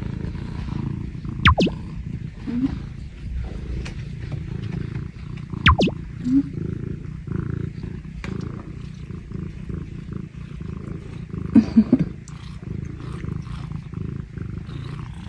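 Scottish Fold cat purring, a steady low rumble. Two brief sharp sounds sweep down in pitch about a second and a half and six seconds in, and a few clicks come near twelve seconds.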